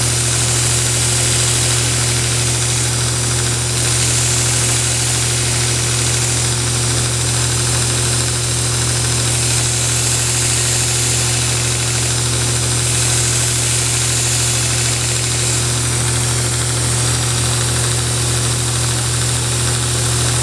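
Grizzly belt grinder/buffer's electric motor and sanding belt running with a steady hum and whir, as a steel broadhead is ground against the belt, throwing sparks.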